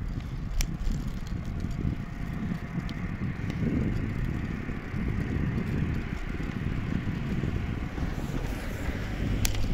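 Wind rumbling on the microphone and tyre noise from a bicycle rolling on tarmac, with a few sharp rattling clicks. A pickup truck drives past toward the end.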